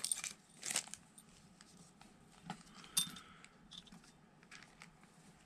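Small metal screws and an optic mounting plate being tipped out of a plastic parts bag and set down on a work mat: a few light clicks and clinks, the sharpest about three seconds in.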